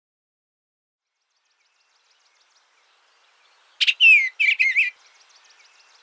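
Eastern bluebird singing one short warbled phrase of several quick sliding notes, about four seconds in, followed by faint high chatter.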